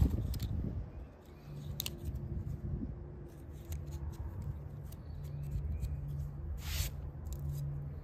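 Victorinox Fieldmaster pocketknife scraping shavings off a fatwood stick in a run of short, irregular scraping strokes, over a steady low hum.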